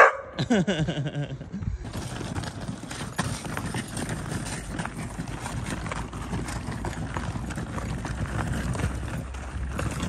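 A dog barks sharply, then gives a whine that falls in pitch for about a second and a half. Then footsteps crunch steadily on packed snow.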